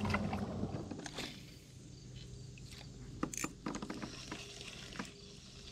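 Faint scattered clicks and taps of a spinning rod and reel being handled in a kayak as fishing resumes.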